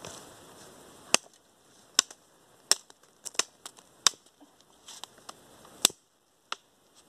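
Sharp chopping strikes of a blade against the thin wooden stem of a sapling, about nine irregular blows roughly a second apart, cutting it at its base.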